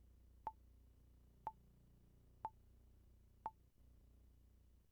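Countdown timer sound effect: short, sharp beeps, one a second, four times, with a faint low hum beneath.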